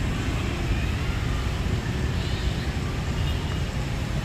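Steady city street traffic noise: a continuous wash of passing vehicles, heaviest in the low end.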